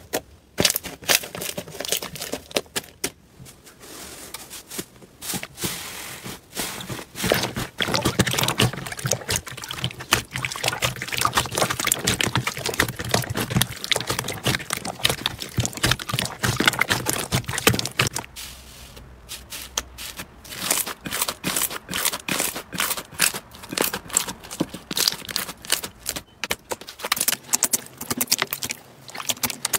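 Slime being squeezed and pressed by hand, giving fast, irregular sticky clicks and crackles as it squishes and its air pockets pop, with a short quieter patch about two thirds of the way through.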